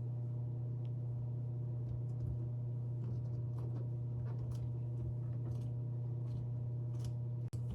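A steady low hum, with faint scattered ticks and rubs of hands working the rubber washer door gasket as the cemented patch is pressed on.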